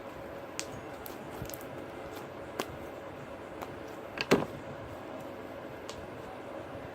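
Slime being kneaded and mixed by hand: scattered small clicks and squelches, the loudest about four seconds in, over a steady background hum.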